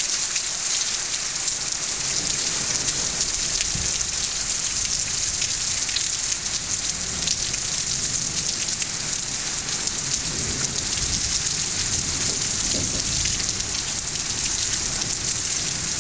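Steady heavy rain falling, a dense hiss of many fine drops pattering on surfaces, with a faint low rumble coming and going underneath.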